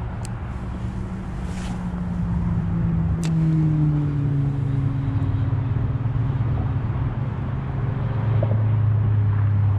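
A motor vehicle's engine drone from a passing vehicle, its pitch sinking slowly and steadily throughout, over outdoor background noise. A couple of faint clicks sound near the start and about three seconds in.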